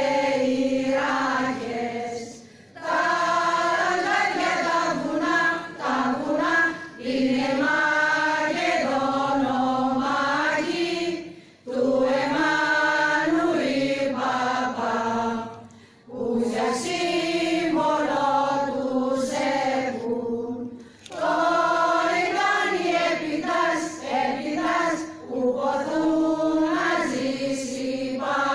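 A choir singing without instruments, in phrases of a few seconds broken by short pauses.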